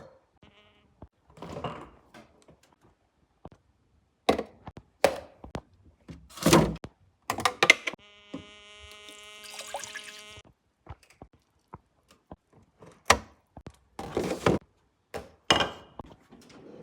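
A string of thuds and knocks, with an unidentified buzzing noise, a steady pitched buzz lasting about two and a half seconds, in the middle.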